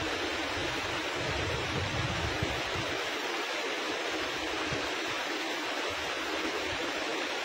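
River water rushing steadily, with a gusty low rumble underneath that drops away about three seconds in.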